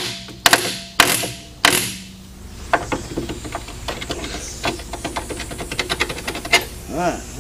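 Three sharp metal-on-metal impacts with ringing in the first two seconds, then a long run of quick clicking like a ratchet wrench turning a fastener at a truck's front axle steering knuckle.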